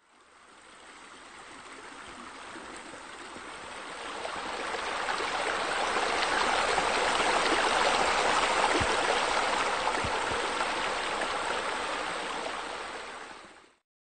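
Water splashing from a pool waterfall into the pool: a steady rush that fades in slowly, is fullest in the middle and fades out just before the end.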